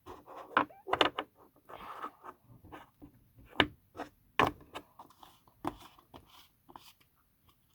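Stretchy slime being squeezed and stretched by hand, giving off irregular sharp pops and crackles with short squelchy stretches between them.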